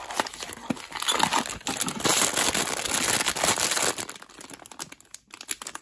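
Metallic foil blind-bag wrapper crinkling as it is handled in the hands, loud and dense through the middle, then dying down to a few faint crackles near the end.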